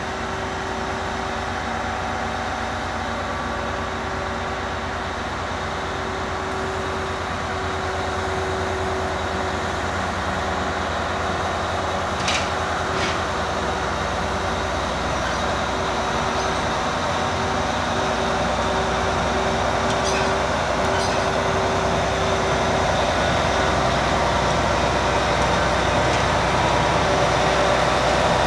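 Speno RR16-M14 rail grinding train's diesel engines running with a steady drone as the train rolls slowly past, growing gradually louder. A few brief high clicks come about halfway through and again about two-thirds of the way in.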